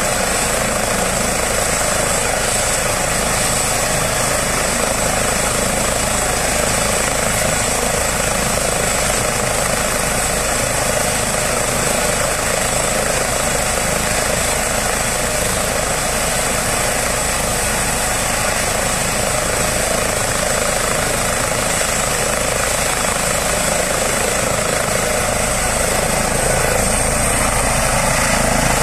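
Eurocopter EC135 helicopter running on the ground before takeoff: twin turboshaft engines and spinning main rotor giving a steady, loud rush with a high turbine whine. Near the end the whine rises a little and the noise swells as it powers up to lift off.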